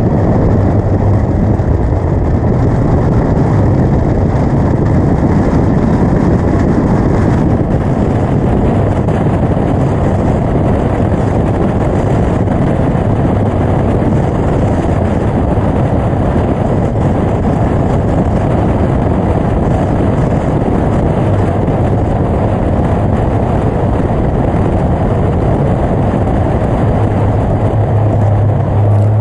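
Caterham Seven's engine driven hard at racing speed, heard from an onboard camera in the open cockpit, with the engine note rising and falling under heavy wind and road noise. The sound changes abruptly about seven seconds in.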